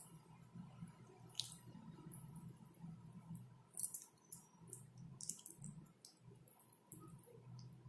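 Faint, irregular wet squelches and sticky clicks of a hand rubbing thick masala paste onto katla fish steaks, over a low steady hum.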